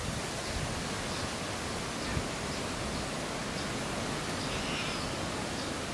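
A steady rushing noise, even and unbroken, with a few faint high ticks.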